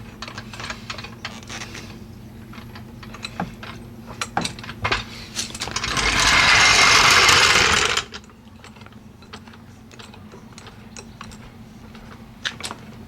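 Metal clicks, knocks and rattles from a new 3-ton hydraulic floor jack being handled and worked while it is checked for oil, with a loud two-second hiss about six seconds in.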